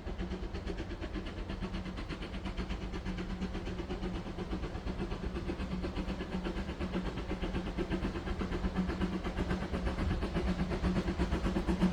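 Narrow-gauge steam locomotive 99 1785-7 working along with a rapid, even beat of exhaust chuffs, growing steadily louder as it approaches.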